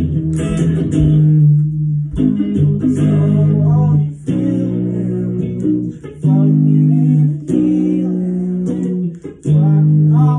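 Electric guitar playing held chords and notes in short phrases of one to two seconds, with brief breaks between them.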